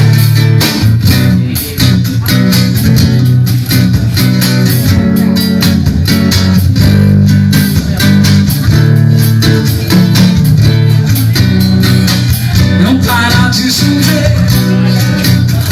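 Instrumental break in a sertanejo song: guitars over bass guitar with a steady beat.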